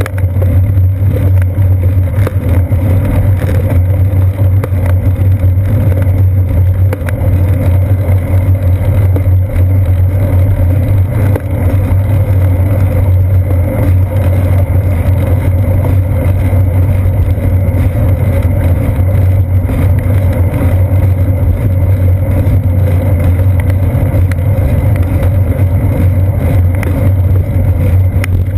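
Steady, loud low rumble of wind and road vibration picked up by a seat-post-mounted GoPro Hero 2 as the bicycle rolls along a paved path.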